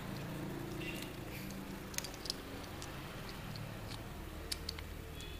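A few small, sharp clicks and light handling noises as a disassembled smartphone and its parts are handled at the bench, over a steady low hum.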